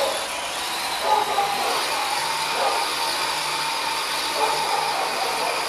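Tamiya CC01 RC truck's stock brushed electric motor and gears whining under 3S LiPo power as it drives on a tile floor, the pitch rising and falling with the throttle.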